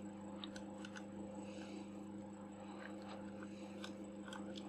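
Steady low electrical hum with a few faint, light clicks scattered through it, as a small precision screwdriver works the tiny screws of a Nikon 50mm f/1.4 lens.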